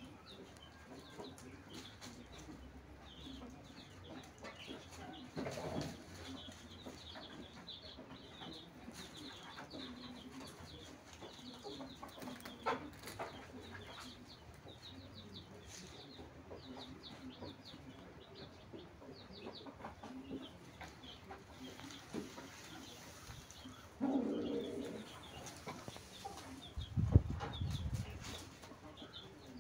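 Birds calling: quick high chirps repeat throughout over lower, rougher calls. A few dull thumps come near the end, the loudest about two and a half seconds before the end.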